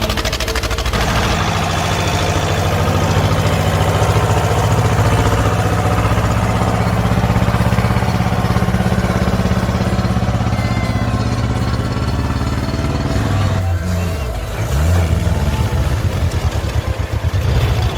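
A small off-road vehicle's engine running hard at high revs while churning through mud. The engine note drops about fourteen seconds in, then revs up and down again.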